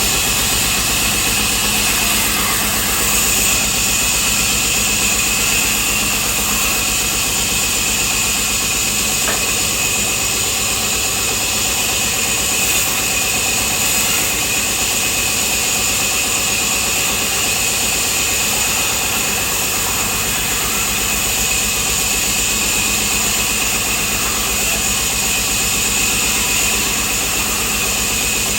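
Power saw in a cricket bat workshop running while it cuts Kashmir willow. It makes a steady, loud, high rushing noise over a low hum, with no breaks.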